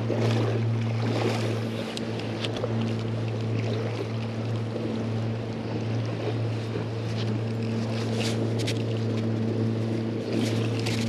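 Boat motor running steadily, a constant low hum, over rushing river water and wind on the microphone. Faint ticks come from a spinning reel being cranked in.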